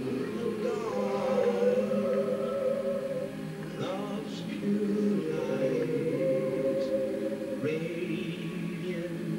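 A choir singing a slow piece in long, held notes, with short breaks between phrases about four and eight seconds in.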